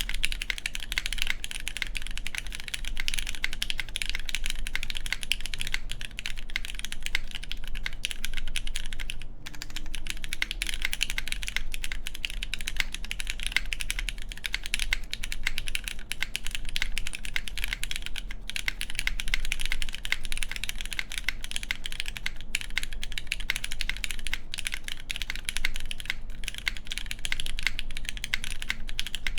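Fast, continuous typing on an Antipode Studio Pneuma Mk.2/60 mechanical keyboard with lubed Cherry MX Black Clear Top linear switches, an aluminum plate and GMK keycaps, built with no gasket under the spacebar. The keystrokes run as a dense stream of clacks, with a brief pause about nine seconds in.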